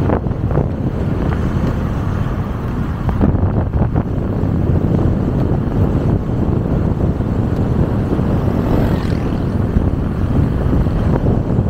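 Motorcycle riding along a road, its engine running steadily under a heavy rush of wind over the microphone.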